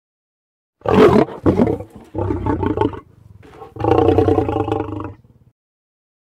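The MGM studio-logo lion roar: starting about a second in, two short roars, then two longer growling roars with a brief gap between them, the last trailing off.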